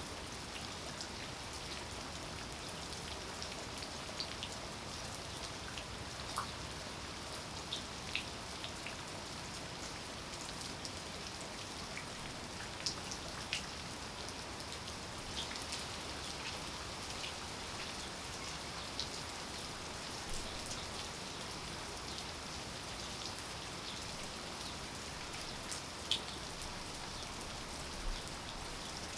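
Steady rain falling, a continuous hiss with many scattered individual drops ticking sharply through it.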